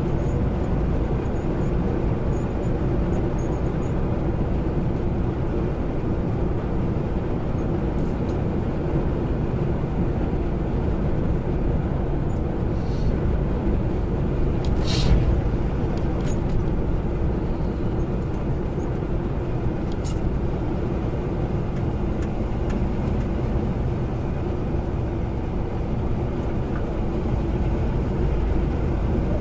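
Semi-truck driving, heard from inside the cab: a steady engine drone and road noise, with a brief sharp noise about halfway through.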